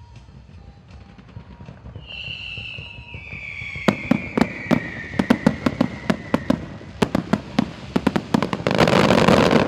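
Aerial fireworks: a whistle sliding down in pitch about two seconds in, then a rapid string of sharp bangs from about four seconds on, ending in a dense, loud crackling burst.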